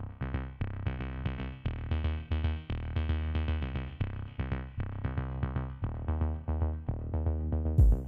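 Upbeat electronic intro music: synthesizer notes over a drum-machine beat.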